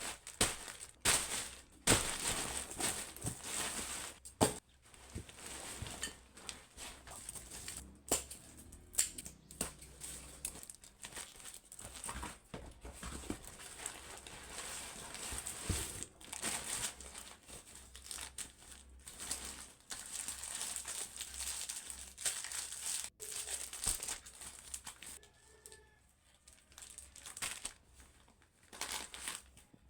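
Packaging being handled and opened: irregular crinkling and rustling with occasional tearing, in uneven bursts.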